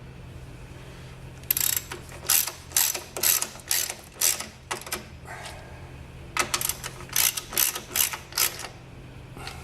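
Hand socket ratchet tightening a bolt, clicking in two runs of quick strokes: about seven, a short pause, then about six more.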